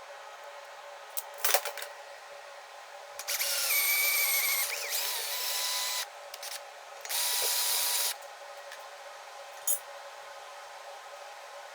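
Electric power drill run in two bursts: a first of about three seconds whose motor pitch sags and wavers as it bites, then a shorter one at a steady pitch. A few sharp clicks come before and after.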